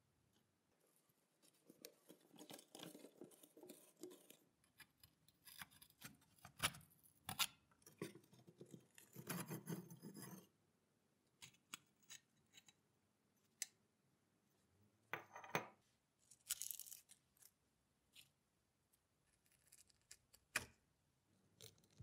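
Rusty metal parts of a mechanical coin bank being handled and taken apart: quiet scraping and small metallic clicks and clinks in several short bursts.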